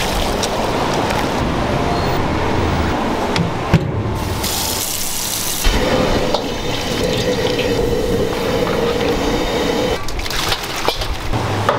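Water splashing and running: a moray eel thrashing in a seafood tank's water, then a stream of water running onto the eel in a plastic basket, then water poured from a pot over it, with a few sharp knocks.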